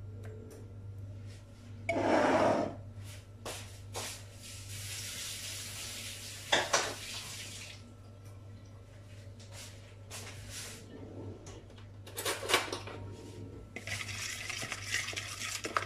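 A metal spoon clinking and scraping against a plastic mixing bowl as mustard is scraped into dry spices, with a few louder knocks; near the end, quick continuous stirring of the spice paste. A steady low hum sits underneath.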